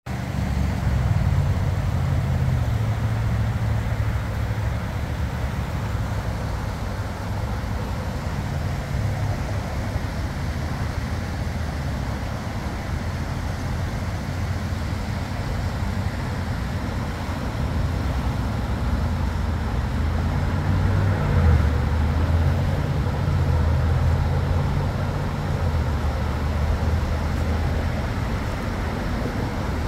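Steady rushing noise of the flooded, fast-flowing river in its concrete channel, mixed with traffic noise from the adjacent freeway. A low rumble rises and falls underneath.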